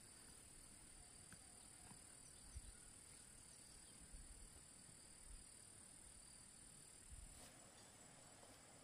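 Near silence with a faint, steady high-pitched insect drone, and a few soft low knocks.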